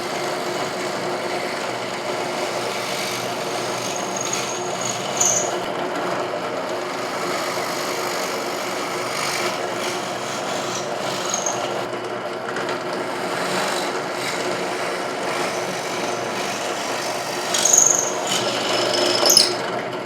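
A power tool's motor running steadily while a plywood disc is sanded against it, giving a continuous rasping hum. Brief high squeals come about five seconds in and twice near the end.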